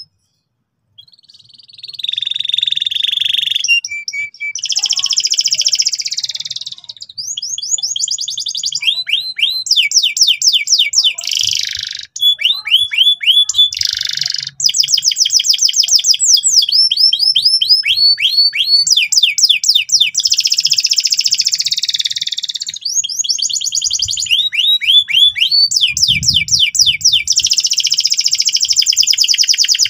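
Canary singing loudly, starting about a second in. Its song runs in long rolls of rapid repeated notes, broken by short buzzy, rasping phrases.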